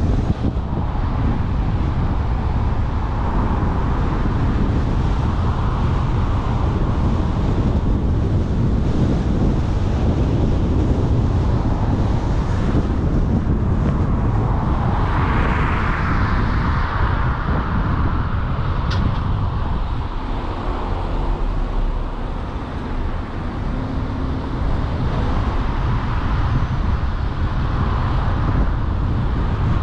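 Steady road noise from a moving car: low tyre and engine rumble with wind noise on the microphone, swelling louder for a couple of seconds about halfway through.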